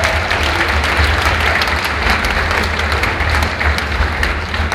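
Audience clapping between tracks at an industrial techno gig, many close hand claps over a steady low rumble, through an old mobile phone's microphone.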